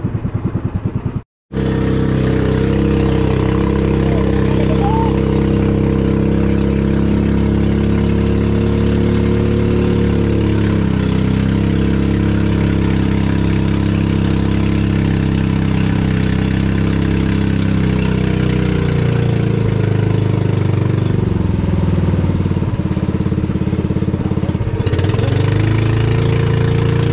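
Outrigger boat's engine running steadily under way, its pitch shifting slightly a few times; the sound cuts out briefly about a second in.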